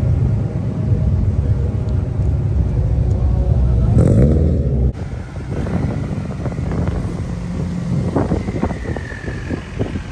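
Car engines and exhausts running, with one engine revving up briefly about four seconds in and cutting off sharply.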